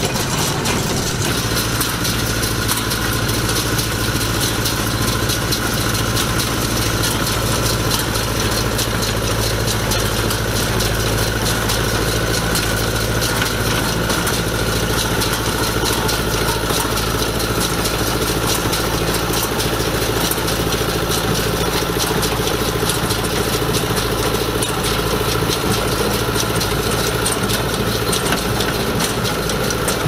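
Fiat 880DTH tractor's diesel engine running steadily while powering a Gallignani 146 Special small square baler. The baler's mechanism clatters in a fast repeating rhythm over the engine.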